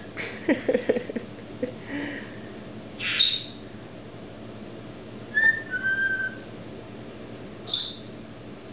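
Caged pet parrots giving a few separate short calls and whistles: a sharp call about three seconds in, two short whistled notes a little after five seconds, and a loud shrill call near the end.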